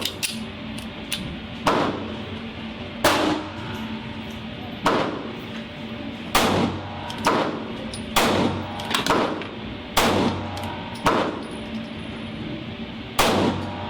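Kel-Tec PF9 9mm pistol firing a magazine of JC Arms 9mm ammunition, single shots one to two seconds apart, with fainter shots in between. The pistol cycles through the magazine without a failure to extract.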